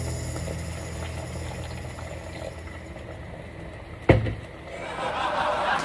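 Water at a rolling boil in an uncovered stainless steel stockpot, with a single loud knock about four seconds in. The bubbling grows louder near the end.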